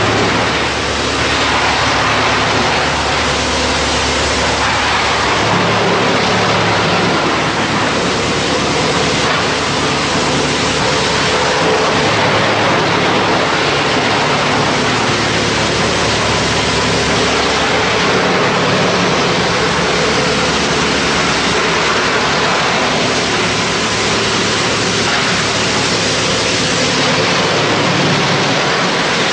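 Large drum wood chipper running, a loud steady machine noise with a low hum that shifts a little in pitch now and then.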